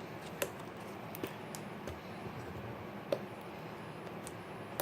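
Several light clicks and taps from slime-making supplies being handled, spread out over a steady low hiss.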